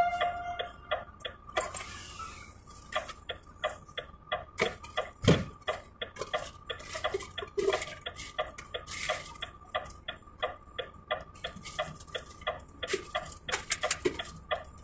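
Fast, even mechanical ticking, about three to four clicks a second, over a faint steady high tone, with one low thump about five seconds in.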